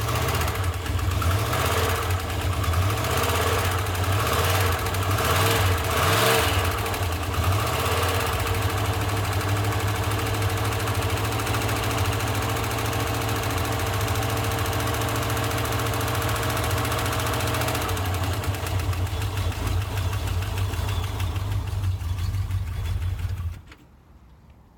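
AMC 360 V8 of a 1991 Jeep Grand Wagoneer running cold with its accessory belts removed, carrying the engine knock that the owner is chasing; with the belts off, the accessories are ruled out as the source. The engine is shut off a second or so before the end, and the sound cuts off suddenly.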